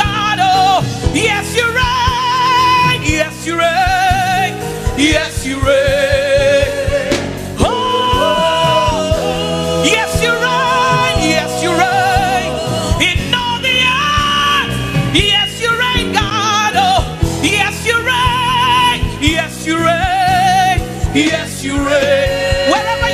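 Live gospel worship music: a band plays under a singing voice that holds long notes with heavy vibrato and sings melodic runs.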